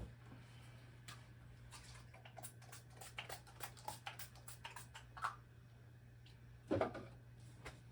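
A run of light, irregular clicks and taps, a few a second, then a single louder knock near the end, over a steady low hum.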